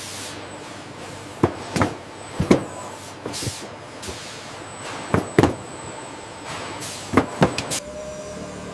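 A series of sharp knocks and bangs, about ten of them, several coming in quick pairs, over a steady background noise.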